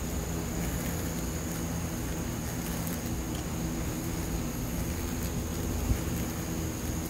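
Buzzing of Asian giant hornets and honeybees around beehives, with hornets stuck on a sticky trap beating their wings, a low hum that wavers in pitch. A thin, steady high whine runs underneath, and a single brief thump comes about six seconds in.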